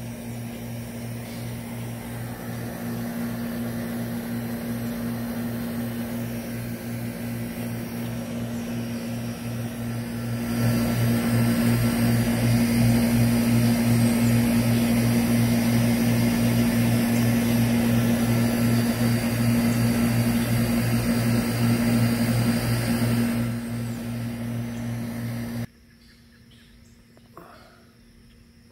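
A steady mechanical hum with a low, slightly pulsing drone, growing louder about ten seconds in. It cuts off suddenly a few seconds before the end, leaving a much quieter background.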